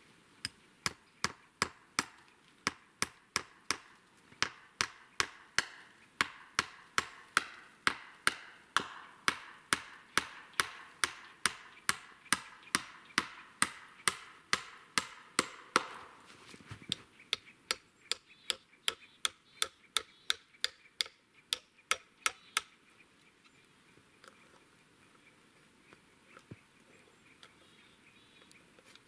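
Nails being hammered into a wooden pole: quick, regular blows, about two or three a second, with a brief pause past the middle, stopping some seconds before the end.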